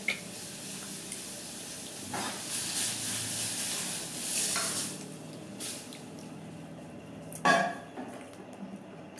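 Eating sounds: fingers picking pieces of rare steak out of a ceramic bowl and wet chewing and biting into the meat, with a short louder knock about seven and a half seconds in.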